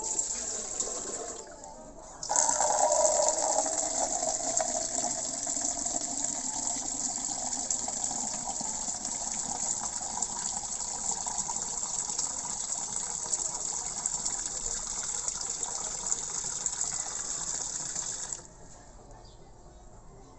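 Water from a kitchen tap gushing steadily into a pot for about sixteen seconds, then cut off suddenly; a brief splash of water comes just before it.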